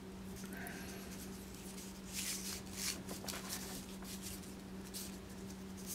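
Faint rustling and light handling noise of heat-shrink tubing being slid along an insulated wire by hand, a few soft rustles in the middle, over a steady low hum.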